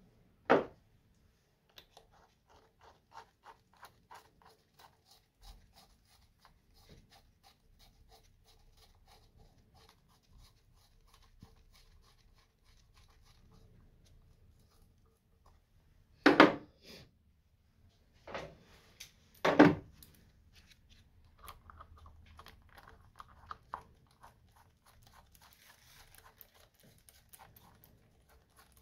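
Small screws of a scooter's intake manifold being turned in and tightened with a hand tool: rapid light clicking and scraping. A sharp clunk of metal comes about half a second in, and three more come a little past the middle.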